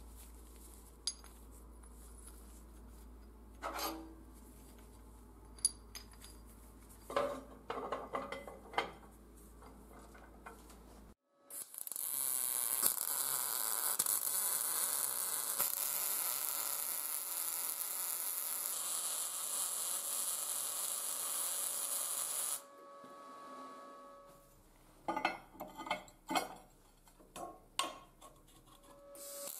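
Steel parts clinking and clanking as they are set down and positioned on a perforated steel welding table, then, after a sudden cut, about eleven seconds of a MIG welder's arc hissing and crackling steadily, then more scattered metal clanks as parts are fitted together.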